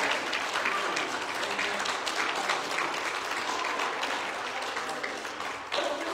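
Church congregation applauding, many hands clapping together, dying down near the end as a man starts speaking.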